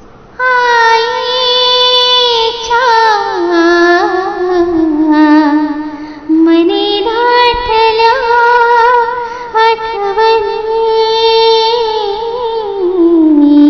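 A woman singing a Marathi mangalashtak, the verses of blessing sung at a Hindu wedding. Her voice comes in about half a second in and holds long, drawn-out notes with ornamented turns, stepping down in pitch twice.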